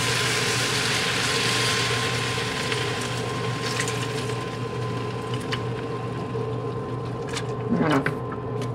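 Milk poured from a plastic jug into a hot skillet of vegetables and flour-butter roux, hissing and splashing as it hits the pan. The hiss fades after about three seconds as the milk spreads through the pan, and a few light clicks follow.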